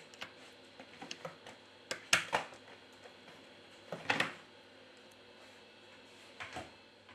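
Small clicks and taps of a smartphone's internal parts being handled and pressed into place, flex cable connectors snapping onto the Xiaomi Mi Note 10's circuit board. The clicks are scattered, with louder clusters about two seconds in, around four seconds and near the end.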